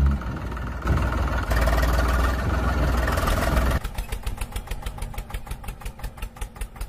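Tractor engine sound: the engine runs with a dense, even noise, then a few seconds in drops to a steady idle chug of about seven beats a second.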